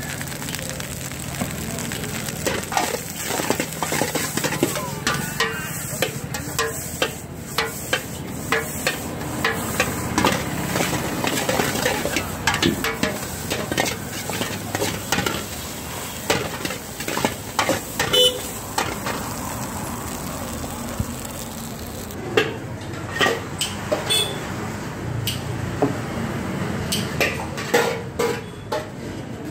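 Metal utensils clanking and scraping against a pan at irregular moments throughout, over a steady frying hiss, as rice is stirred and cooked.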